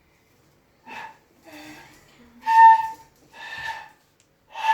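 A three-month-old puppy whining in a series of five short, high cries, the third the loudest.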